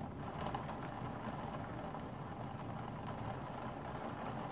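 Steady wash of a heavy rainstorm and the wet street outside, heard from indoors through a closed window, with a few faint ticks.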